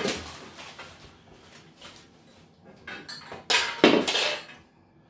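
Metal frame panels of a Pet Planet rat and ferret cage clinking and knocking against each other and the floor as they are handled, with a knock at the start and the loudest clatter about three and a half seconds in.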